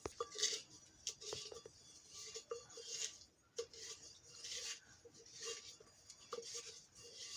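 Repeated scraping strokes of a utensil against a metal pot, coming unevenly about one or two a second.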